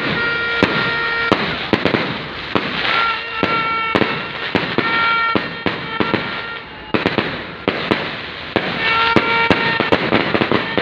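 Fireworks display, with rapid bangs and crackling bursts going off throughout. Over them, a horn sounds several long, steady toots at one pitch.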